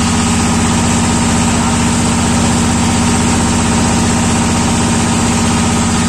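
Boat engine running steadily at a constant speed, a low drone with a fast, even beat.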